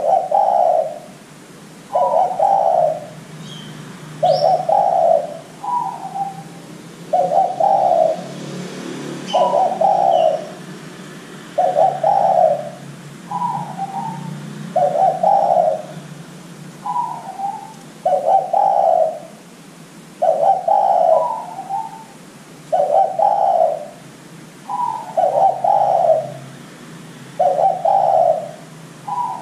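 Spotted dove (derkuku) cooing: a steady series of low coo phrases, one about every one and a half to two seconds, some opening with a short higher note.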